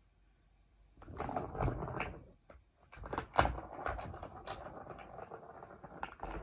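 Persian cats playing with a plastic ball-track toy: starting about a second in, the ball rattles around the track amid repeated clicks and knocks of paws on the plastic, with the loudest knock a little past the middle.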